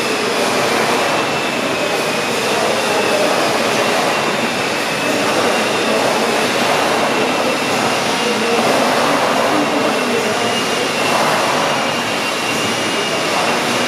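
Victoria side of a large horizontal tandem-compound mill steam engine running. It makes a steady mechanical rush with a thin high whistle, swelling and easing every two to three seconds.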